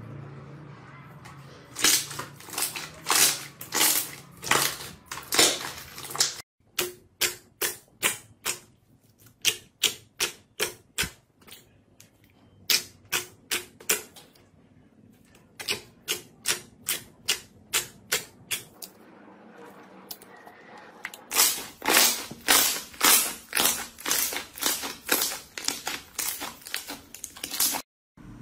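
Slime being pressed, squeezed and poked by hand, giving runs of sharp pops and clicks, about two to three a second, broken by short pauses.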